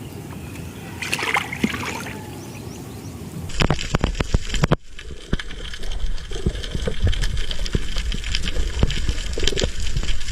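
Seawater sloshing and splashing around a spearfisher. About a third of the way in, the sound changes abruptly to a muffled rumble full of dense crackling clicks, typical of a microphone underwater.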